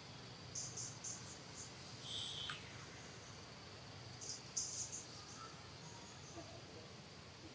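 Insects droning steadily at a high pitch, with two clusters of short high chirps, about half a second in and again around four and a half seconds in.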